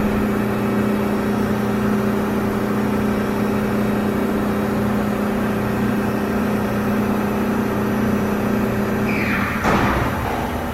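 Mikron HSM-400U high-speed CNC machining center running with a steady mechanical hum. About nine seconds in, a short whine sweeps downward in pitch, and the hum then settles slightly lower and quieter.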